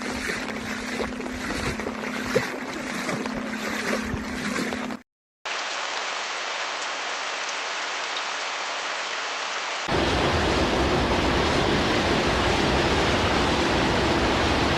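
Steady rushing noise of rain or running water, in three stretches cut together. The first carries a steady low hum, then the sound drops out for half a second about five seconds in, and it comes back louder and fuller about ten seconds in.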